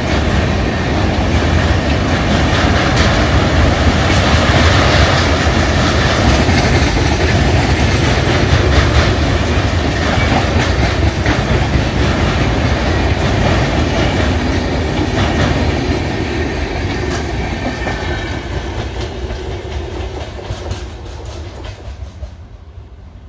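Indian Railways passenger coaches rolling past at speed: a steady rumble of steel wheels on the rails, with a stream of clicks as the wheels cross rail joints. The sound dies away over the last several seconds as the train draws off.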